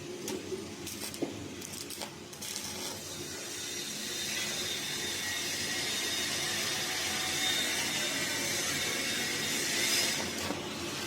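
Steady hissing metalworking noise, building slightly through the middle, with a few sharp clicks in the first couple of seconds.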